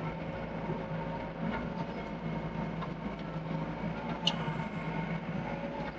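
Doosan DX55 excavator's diesel engine running steadily, with scattered light metallic clanks and one sharper clank a little past the middle.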